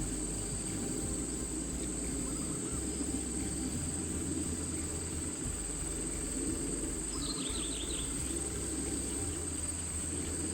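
Steady high-pitched drone of insects, such as crickets, over a low rushing background noise. Some faint chirps come a couple of seconds in, and a quick run of short falling bird-like chirps comes about seven seconds in.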